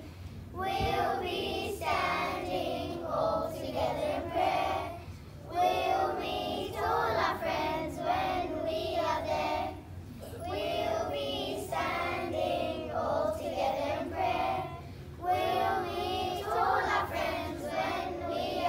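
A group of children singing a nasheed together. The singing comes in phrases of about five seconds, with short breaks between them.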